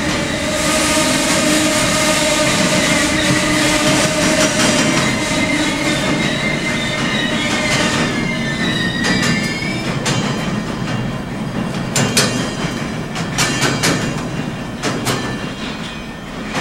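Freight wagons rolling past close by, a steady rumble of wheels on rail. Through the first half a high, wavering squeal runs over it; from about two thirds in, sharp clicks and clacks of wheels crossing rail joints come through.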